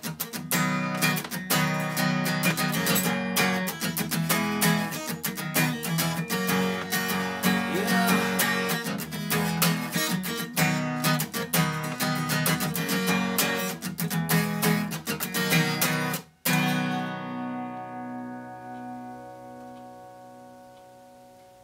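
Acoustic guitar strummed in a steady rhythm, closing about sixteen seconds in on a final chord that rings out and slowly fades away.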